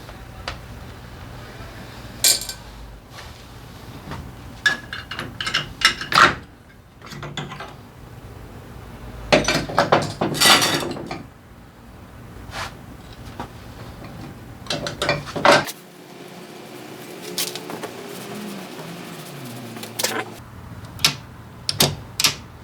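Small metal engine parts and hand tools clinking and knocking now and then as they are handled and set down.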